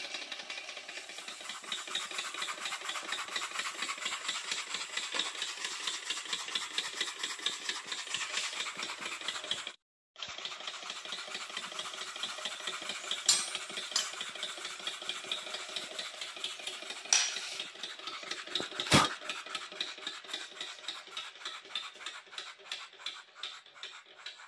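Miniature live-steam engine running: a rapid, even clatter of piston strokes and valve gear, with a few sharp metallic clicks in the second half. The beats spread out toward the end as the engine slows, with its alcohol burner pulled out from under the boiler.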